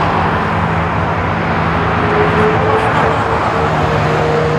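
Airbus A330-300's twin Rolls-Royce Trent 700 turbofans running as the airliner rolls on the runway: a loud, steady engine rush with a low hum, and a higher hum that comes in about halfway and rises slightly in pitch.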